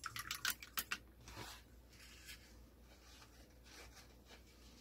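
Paintbrush knocking and swishing in a jar of rinse water: a quick flurry of small clicks and rustles in the first second, then a few faint rubs.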